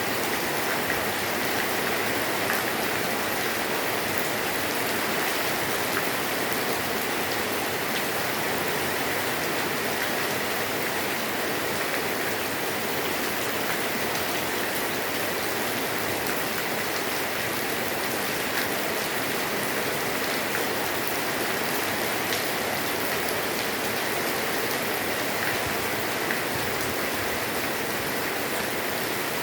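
Light rain falling steadily on a roof: an even hiss with many small drops ticking.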